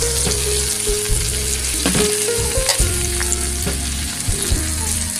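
Chicken pieces sizzling in hot oil in a frying pan with garlic, onion and ginger, with a utensil stirring and clicking against the pan now and then.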